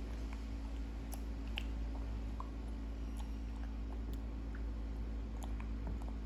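Baby monkey eating yogurt: small scattered clicks and wet smacks of eating, over a steady low hum.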